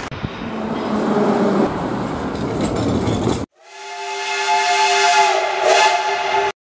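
A business jet's engines running as it rolls along a runway, cut off sharply after about three and a half seconds. Then a steam locomotive's whistle sounds a steady chord of several tones, with steam hissing, for about three seconds before it stops abruptly.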